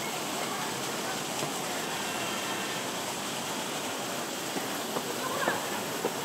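Street ambience: a steady wash of background noise with faint distant voices, and a few light clicks or knocks about five to six seconds in.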